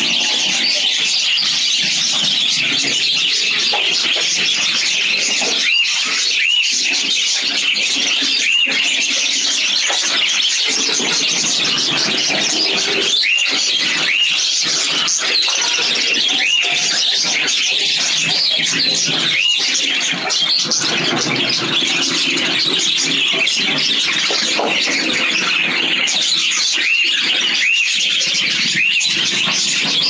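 Many caged lovebirds and other small parrots calling at once: a loud, continuous high-pitched chatter full of short, repeated chirps.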